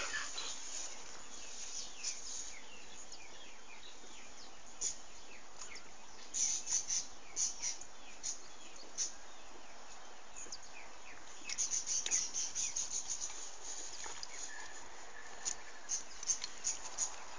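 Birds chirping in scattered clusters of short, high notes over a steady outdoor hiss.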